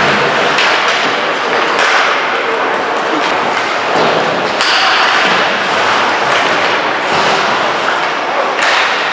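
Ice hockey game in a rink: a steady wash of rink and crowd noise with voices, broken by several sharp knocks and thuds of sticks, puck and boards, the clearest about four seconds in and near the end.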